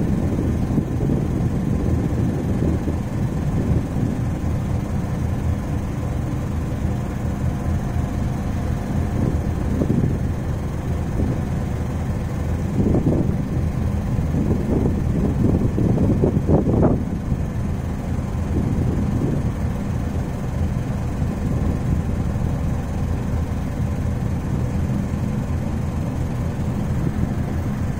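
Steady low marine engine drone, with the rush of water and wind over it. It swells with a few louder surges around the middle.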